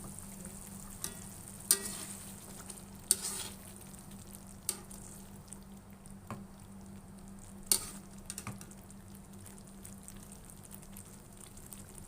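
Sambal with dried squid and belacan frying in a pan over a steady sizzle, stirred with a spatula that knocks sharply against the pan about every second and a half.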